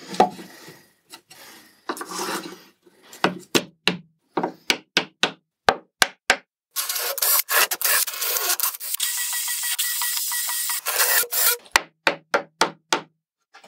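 A small hammer tapping wooden wedges into a plywood corner clamp to pull a plywood edge together: a quick series of sharp knocks, then a steady hissing noise for about five seconds, then a few more quick knocks near the end.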